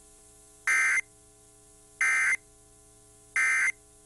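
Emergency Alert System end-of-message (EOM) data bursts: three short bursts of digital two-tone data about 1.3 seconds apart, marking the end of the severe thunderstorm warning message. A faint steady hum runs underneath.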